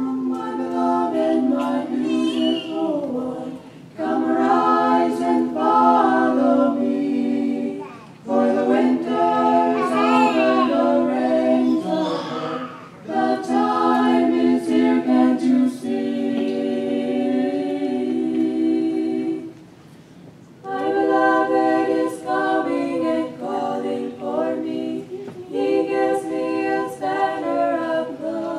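A small mixed group of men and women singing a song a cappella, no instruments, in phrases with short breaks between lines and a longer pause about two-thirds of the way through.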